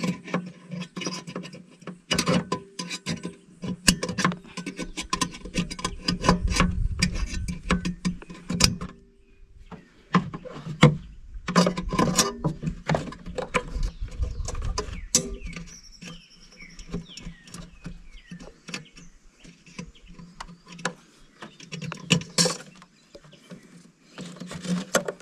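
A screwdriver and fingers clicking, tapping and scraping on the plastic clips and fittings behind a Triumph Tiger 800's headlight as they are worked loose, many irregular sharp clicks, with low rumbles of handling about a quarter and half of the way through.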